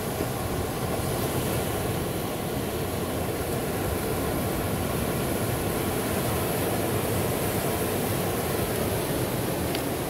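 Ocean surf: a steady, continuous wash of breaking waves, with no single crash standing out.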